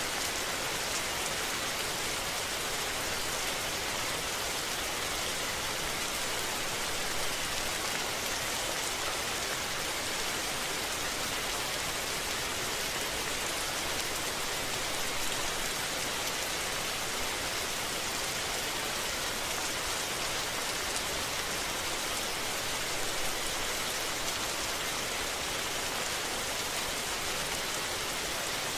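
Steady rain falling, an even, unbroken hiss of drops without any thunder.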